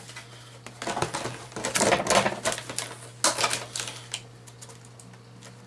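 Clear plastic clamshell packaging crackling and clicking in three bursts as it is handled and pried open, the loudest burst just after three seconds in.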